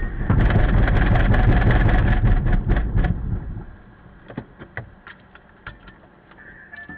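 Inside a car just hit in a collision: a loud low rumble with clattering, which drops away about three and a half seconds in to a quiet hum with scattered clicks.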